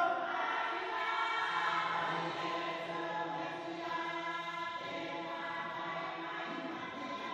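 Background music: choral voices holding long, slowly changing chords.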